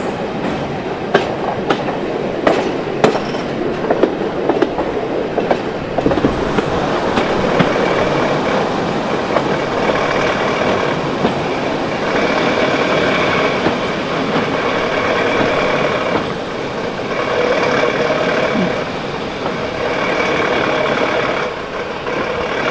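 Heritage train running, heard from an open carriage window: the wheels click sharply over rail joints, then the sound settles into a steadier drone with a held pitched note from about ten seconds in.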